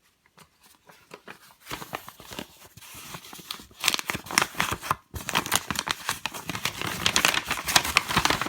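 Packaging crinkling and rustling as small parts are unwrapped by hand: dense crackling that starts after a quiet moment, grows louder, stops briefly about halfway, then carries on loud.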